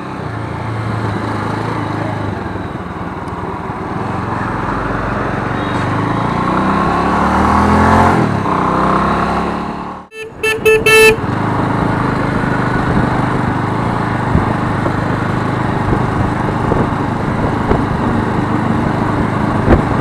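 Motorcycle engine running and pulling away, its pitch rising over a few seconds. After a cut, a vehicle horn sounds in a few short beeps, and then the engine and wind noise run steadily while cruising.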